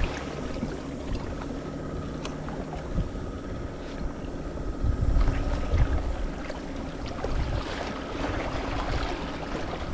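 Small waves lapping and washing against shoreline rocks, with gusts of wind buffeting the microphone.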